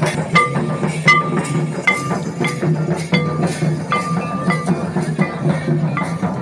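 Santali folk dance music: a steady beat of hand drums, with a ringing metallic strike about every three-quarters of a second.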